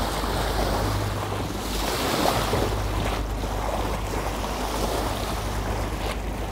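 Fishing boat under way at sea: the inboard engine below deck hums steadily and low under a rush of wind and water, with wind buffeting the microphone.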